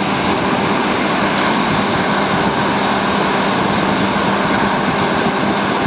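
Heavy rain pouring down in a steady, loud hiss, with a faint low hum running underneath.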